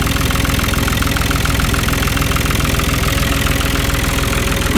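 Long 350 tractor's diesel engine idling steadily with an even, rhythmic beat.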